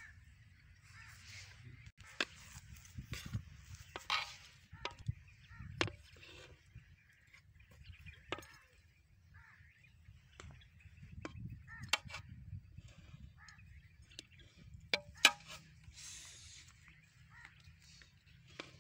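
Metal serving spoon scraping and knocking against a large metal cooking pot while cooked biryani rice is scooped out, giving irregular sharp clinks with soft rustling of rice between them.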